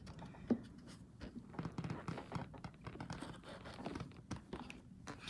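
Faint handling noises: a single knock about half a second in, then light scratching and small taps.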